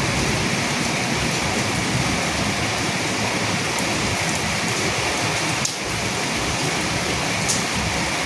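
Steady rain falling, a dense even hiss with a few sharper drops ticking now and then.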